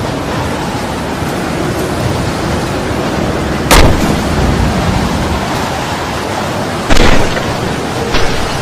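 Storm wind and rain rushing steadily, buffeting the microphone, with two loud sudden bangs about four and seven seconds in.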